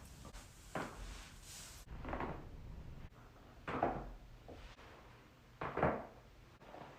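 Joints of the back cracking during chiropractic adjustments: about four separate short pops, a second or two apart.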